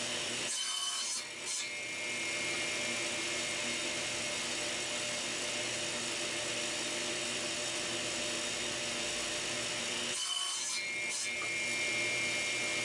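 Table saw running, its blade cutting through a wooden pin board to clear the waste between dovetail pins. A steady motor hum and cutting noise, changing briefly near the start and again about ten seconds in.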